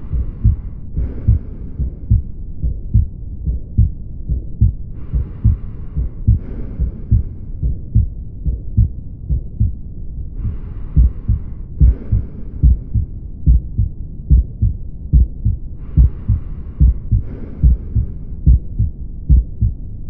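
Recorded heart sounds of aortic valve stenosis: a steady run of low heartbeat thuds, with the lub-dub masked by the swooshing systolic murmur characteristic of a stenotic aortic valve. A brief hiss returns about every five seconds.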